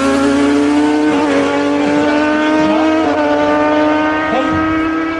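Yamaha R1M and Kawasaki ZX-10R superbike engines running hard at high revs, a steady engine note that rises slowly in pitch.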